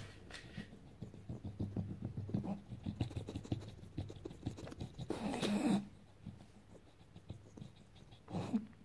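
English bulldog digging and rooting with its face in a fluffy blanket: rapid scratching and rustling with snuffling breaths. A louder burst of breath comes about five seconds in, and a shorter one near the end.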